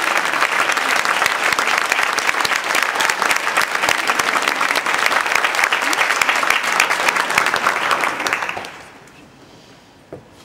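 Audience applauding, dense even clapping that fades out about eight and a half seconds in.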